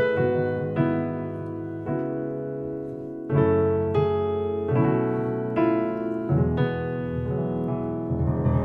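Nord Stage 4 stage piano playing its Royal Grand 3D sampled grand piano: a slow passage of full chords, each struck and left to sustain, a new chord about every second.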